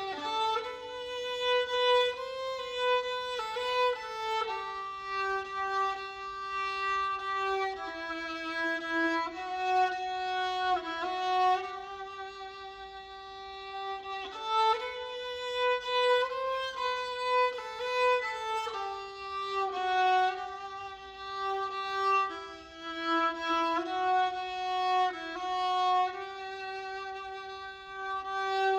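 A solo violin playing a slow, simple melody one held note at a time. The same phrase is played twice.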